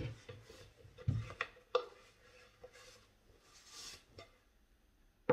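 Soft handling noises: a few light knocks and a dull thump in the first two seconds, then a brief rustle near four seconds, as a cotton T-shirt is gathered up off a wooden desk.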